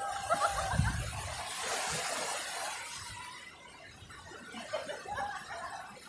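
High-pitched laughter over breaking surf, with a wave washing in noisily about two seconds in, then more laughter near the end.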